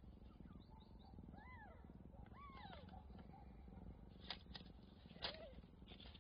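Cat purring softly and steadily, with three short thin mews in the first three seconds and two brief sharp crackles about four and five seconds in.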